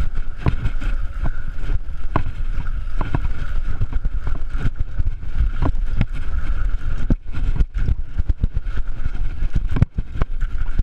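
Wind buffeting the microphone of a body-mounted action camera on a BMX bike in motion: a heavy low rumble with frequent irregular knocks and rattles from the bike and camera jolting over the track, under a steady thin whine.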